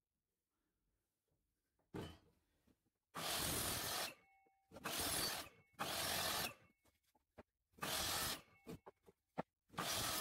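Hikoki 216 mm sliding mitre saw making repeated shallow trench cuts into plywood with its depth stop set. There is a light touch about two seconds in, then five loud cuts of under a second each, with near silence between them.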